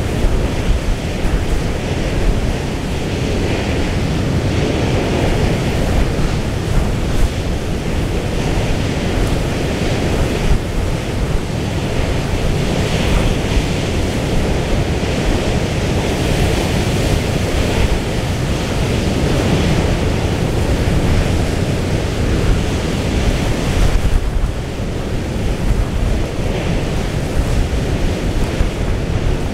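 Storm wind buffeting the microphone in irregular gusts, over the steady rush of rough, breaking sea.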